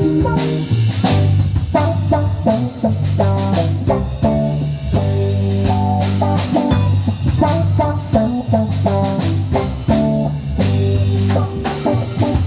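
A band playing an instrumental passage between sung verses: guitar notes over a bass line and drum kit, with a steady beat.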